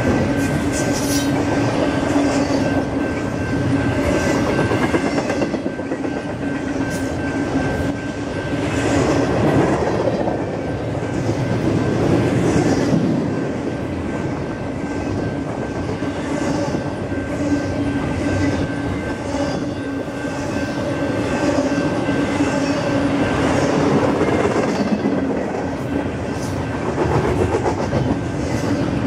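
Double-stack container well cars of a freight train rolling past: a steady rumble of steel wheels on the rails with a low hum underneath and a regular clickety-clack, a click roughly every second as the wheels cross rail joints.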